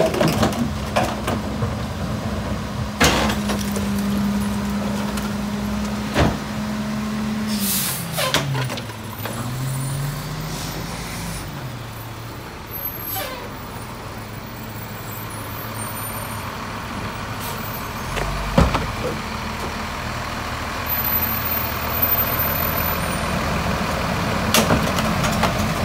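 Rear-loader garbage truck's diesel engine held at a steady raised speed, as it is when driving the packer, then a sharp air-brake hiss about eight seconds in. The engine drops and climbs again as the truck pulls forward, with a few metal bangs scattered through.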